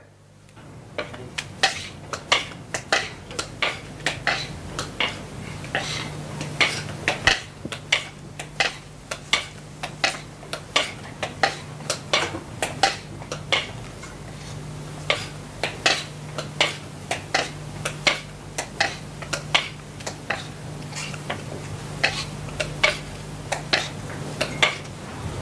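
A long run of sharp, unevenly spaced clicks, about two a second, over a steady low hum.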